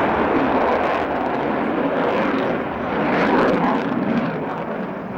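Military jet engine noise from a display aircraft flying past. The sound is a continuous broad rush that swells a little just past the middle and eases toward the end.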